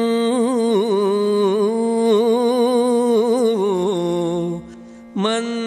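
A man singing a Kannada verse in the gamaka style, holding the end of the line in a long melisma with wavering ornaments. About four and a half seconds in he breaks off for half a second, then takes up the next phrase.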